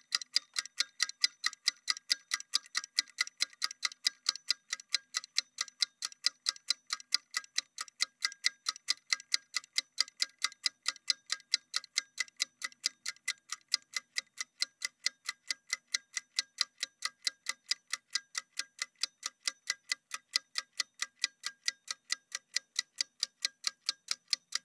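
Steady clock-ticking sound effect, several quick ticks a second, marking a workout rest countdown.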